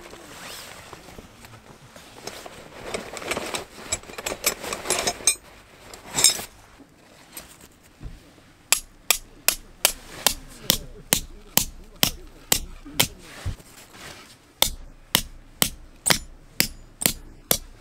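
Camping peg hammer with a metal head knocking a tent peg into the ground: quick, even strikes at about two or three a second, with a short pause partway through. Before the hammering, a few seconds of rustling that ends in a louder knock about six seconds in.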